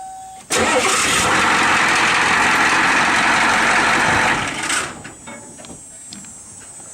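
A loud engine runs, dying away about four and a half seconds in. Faint clicks and knocks follow.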